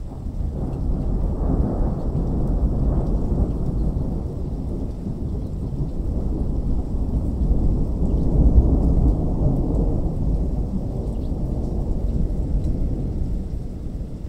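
Long rolling thunder: a deep, continuous rumble that swells about two seconds in and again, loudest, around eight to nine seconds in.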